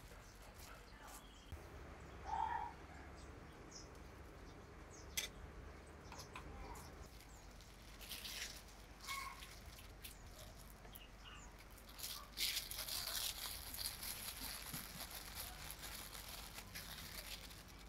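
Plastic wrap crinkling and rustling as hands handle and crumple it, with scattered crackles at first and a denser, louder rustle over the last five seconds or so.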